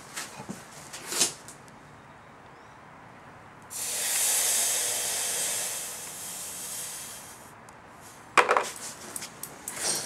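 A freshly cast, still-hot gold bar quenched in a bucket of water, hissing as it cools. The hiss starts suddenly about four seconds in and fades away over about four seconds. There are sharp clicks before it and a clack afterwards.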